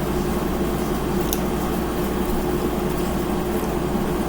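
Steady mechanical hum of room equipment, with one faint click about a second in.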